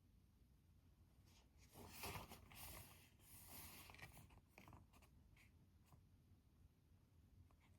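Faint rustling and scratching at a desk, loudest for a couple of seconds starting about a second and a half in, then a few scattered light clicks.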